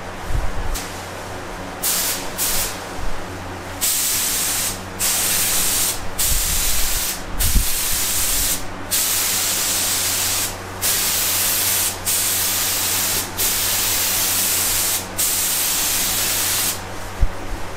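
Gravity-feed compressed-air paint spray gun hissing as its trigger is pulled in passes: a few short bursts first, then about nine longer passes of one to two seconds each, with brief breaks between them.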